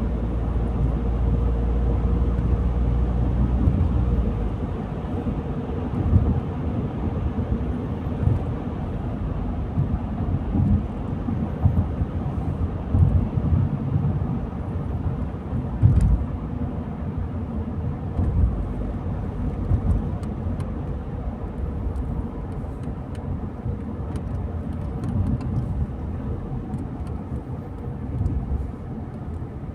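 Car driving: a steady low rumble of road and engine noise with irregular low thumps, heavier for the first few seconds, and a few faint ticks in the second half.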